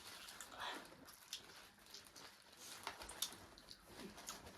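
Quiet eating sounds: scattered small clicks and wet smacks of people chewing food at close range.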